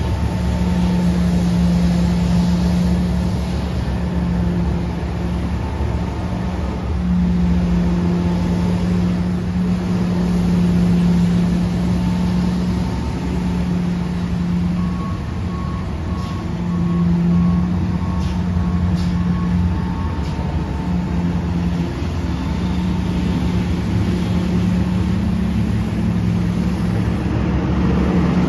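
Tymco regenerative-air street sweeper running while it sweeps: a steady low drone from its engine and blower over a rumble, swelling and easing as it moves. About halfway through comes a row of short beeps, roughly two a second for about five seconds.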